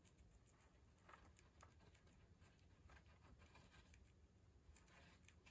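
Faint, irregular crisp clicks of a baby hamster nibbling a cabbage leaf, over very quiet room tone.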